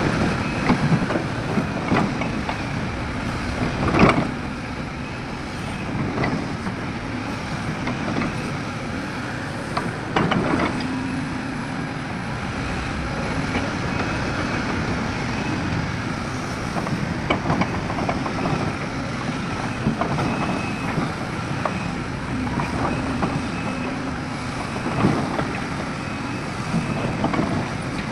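Heavy diesel machinery working: a hydraulic excavator's engine running steadily under load while it loads a dump truck, with occasional metallic clanks and knocks, the sharpest about 4 seconds and 10 seconds in.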